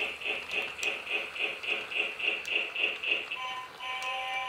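Lionel Little Lines toy train's electronic sound effects: a rapid chugging of about four puffs a second, then, about three and a half seconds in, a steady steam-whistle tone of several notes held together.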